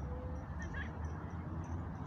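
Outdoor park ambience: a steady low rumble with small birds chirping faintly and intermittently.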